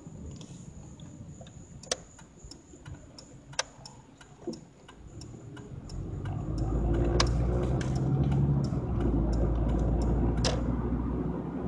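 Car turn signal ticking, about three clicks a second, while the car waits at a stop sign. About halfway through, the car's engine and road noise rise as it pulls away through the turn.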